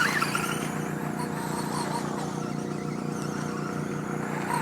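RC car running, with a steady, even-pitched whine and a light rushing noise over it.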